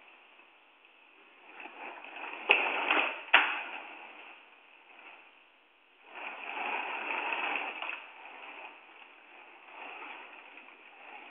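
Two sharp knocks less than a second apart, over faint muffled noise that rises and falls.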